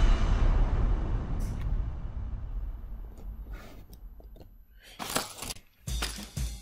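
A sudden, loud, deep boom-like hit that dies away slowly over about four seconds, the kind of impact sound effect laid under a title card. About six seconds in, drum-led music starts.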